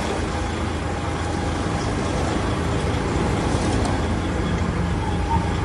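DAF CF 85.410 concrete mixer truck's diesel engine idling steadily.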